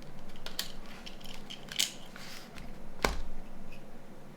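Small plastic and metal phone parts clicking and tapping as a Nokia 9210 is taken apart by hand, with a sharper knock about three seconds in.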